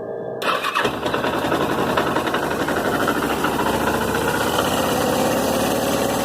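Suzuki GS 500E air-cooled parallel-twin engine idling, with an abnormal knocking rattle that shows at idle but not at high revs. It becomes suddenly louder about half a second in, and the idle note creeps slowly upward. The owner suspects the cam chain tensioner, the clutch basket or the magneto gear rather than the connecting rods or cylinders.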